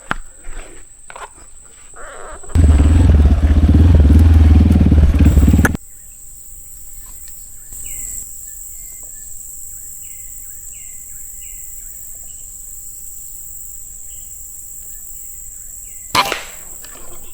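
Steady high insect drone with small bird chirps, broken a few seconds in by a loud rumble of wind or handling noise on the microphone lasting about three seconds. Near the end comes a single sharp air rifle shot, which hits the squirrel.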